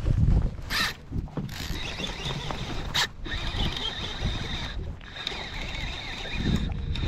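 Wind buffeting the microphone, with a few sharp clicks in the first three seconds and a steady high whine from about two seconds in.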